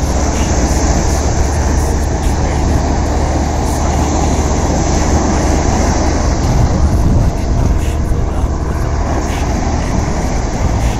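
Steady, loud rush of seaside wind on the microphone, with a constant deep rumble and sea noise beneath.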